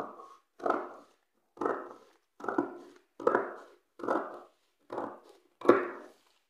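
Scissors snipping through folded brown paper: a steady run of about eight cuts, roughly one a second.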